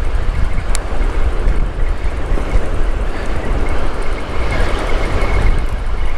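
Wind buffeting the microphone in a steady low rumble, over the wash of breaking surf, with one sharp click just under a second in.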